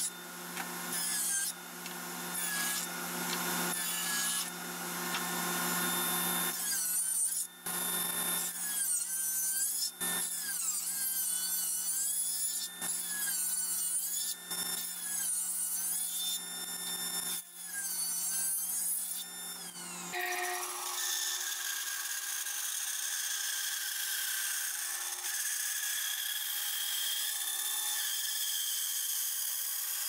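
A power tool working wood, its pitch dipping and recovering about every second and a half as it bites into the workpiece. About twenty seconds in the sound changes to a different, steadier tool sound.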